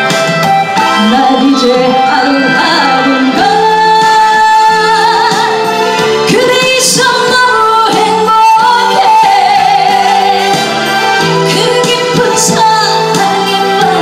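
A woman singing a Korean trot song live into a handheld microphone over instrumental accompaniment, with long held, gliding notes.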